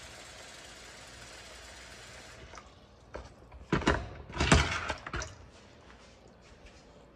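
Tap water pouring steadily into a plastic spin-mop bucket, stopping abruptly a little over two seconds in. About a second later comes a loud burst of hard plastic knocks and rattles from the bucket being handled.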